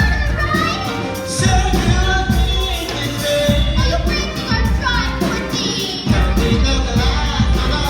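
Musical theatre singing over band accompaniment, with a deep bass pulsing under the voice.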